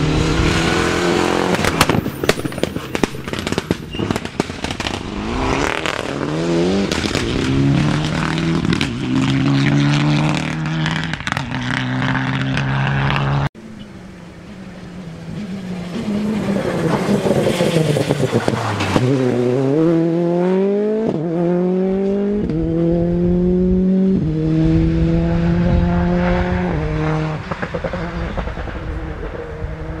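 Rally car engines at full throttle. A Mitsubishi Lancer Evolution's turbocharged four-cylinder comes through with sharp crackles as its note climbs and drops through the gears. After a sudden cut, another car's engine falls in pitch, then climbs hard through a run of upshifts, the note rising and dropping at each change.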